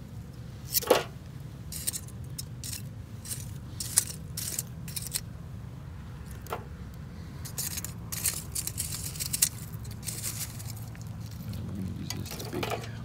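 Metal tongs clinking and scraping against a thin steel charcoal grill tray and on burnt charcoal lumps as the lumps are picked out: a string of short, light clicks and scrapes, the sharpest about a second in and again at four seconds.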